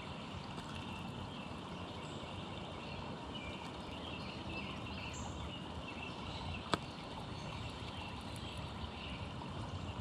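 Steady outdoor background rumble with faint, scattered bird chirps, and a single sharp click about two-thirds of the way through.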